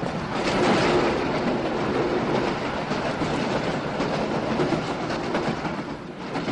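Passenger train carriage running at speed: a steady rumble with the wheels clattering on the rails, easing a little near the end.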